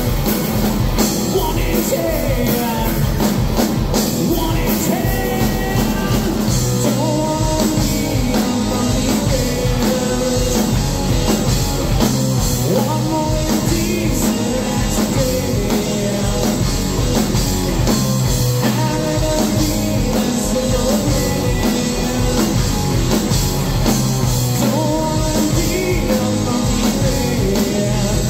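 Live rock band playing loud and steady: electric guitar, bass guitar and drum kit, with a male singer.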